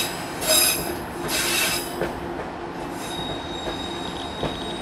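Steel wheels of a narrow-gauge train squealing against the rails in three short bursts, over the steady rumble of the rolling passenger car. A thin high squeal holds from about three seconds in.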